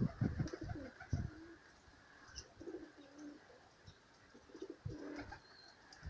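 Domestic pigeons cooing softly in short low phrases, with low rumbles of strong wind buffeting the microphone.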